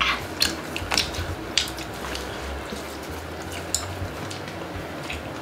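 People eating bean-sprout bulgogi: wet chewing and mouth sounds with a few sharp clicks of chopsticks against bowls and dishes, most of them in the first two seconds.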